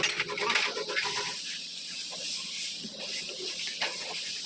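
A car engine idling with a steady hum that stops about a second in, leaving a steady high hiss.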